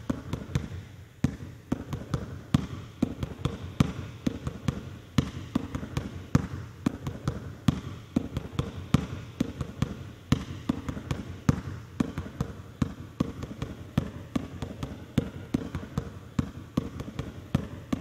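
A basketball being dribbled on a hardwood court, bouncing in a steady rhythm as it goes between the legs and behind the back. The louder bounces come about every second and a quarter, with lighter bounces between them.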